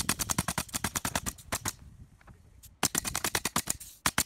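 Pneumatic coil roofing nailer being bump-fired, driving nails through galvanized valley flashing in rapid shots of about seven a second. There are two quick runs with a pause of about a second between them.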